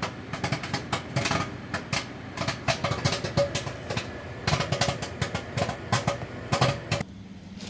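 Bag of Orville Redenbacher microwave popcorn popping inside a running microwave oven: many irregular sharp pops, several a second, over the oven's steady hum. The popping stops near the end, a sign the popcorn is done.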